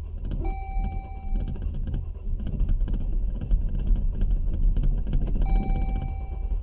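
2011 Jeep Grand Cherokee's 3.6-litre V6 being cranked by the starter without firing, a crank-no-start, as fuel pressure builds to about 60 psi. A steady chime sounds twice, each for about a second.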